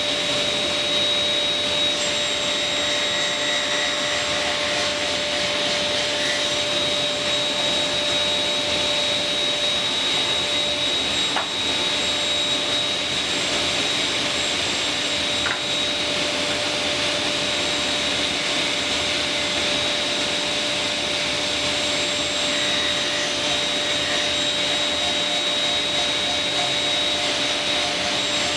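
A workshop vacuum or dust extractor running steadily: an even rushing hiss with a constant high whine.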